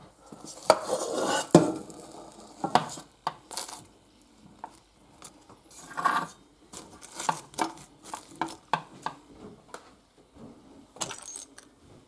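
Light-fixture parts (the metal fixture pan, glass shade and small hardware) being handled and set down on a glass stovetop: an irregular string of clinks and knocks, with two brief rustles, one near the start and one about halfway through.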